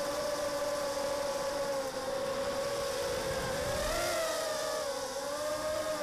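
Six 1306 3100kv brushless motors and propellers of an Armattan Mini Hex hexacopter whining steadily in flight, heard through the quad's own onboard camera. The pitch rises about four seconds in and falls back a second later.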